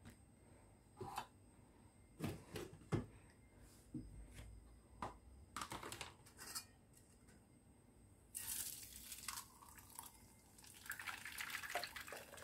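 A few light clicks and knocks as a blender jar and its lid are handled. Then, in the second half, thick blended pomegranate and orange juice pours from the jar into a stainless steel mesh strainer with a steady splashing hiss that grows fuller near the end.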